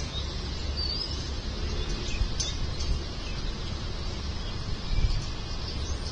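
Outdoor ambience: birds chirping briefly a few times over a steady low rumble, with a dull low bump about five seconds in.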